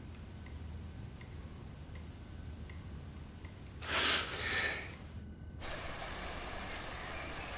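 Quiet indoor room tone with a low hum and faint regular ticks, about three every two seconds. About four seconds in comes a short, loud rush of breathy noise. After a brief gap, a steady outdoor ambience hiss takes over.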